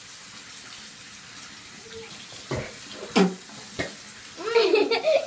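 Water running steadily from a tap, with a few sharp knocks in the middle.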